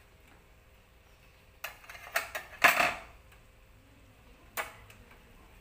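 Kitchenware clattering: a quick cluster of clinks and knocks about two seconds in, then a single knock about two seconds later.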